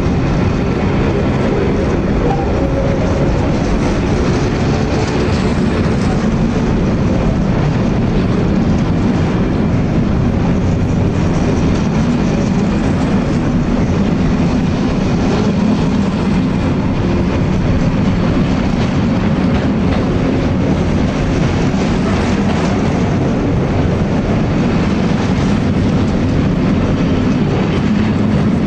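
Intermodal freight train's loaded container wagons passing close by at speed, a steady, loud noise of steel wheels running on the rails.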